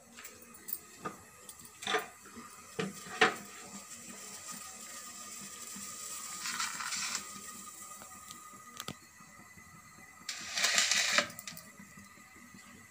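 Light clicks and knocks of a metal pot on a gas stove in the first few seconds, then two short hisses, one midway and a louder one near the end.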